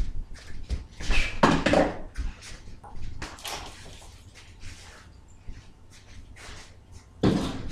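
A few dull thuds of kicks landing on a hanging heavy punching bag, with quieter bumps between; the loudest thud comes near the end.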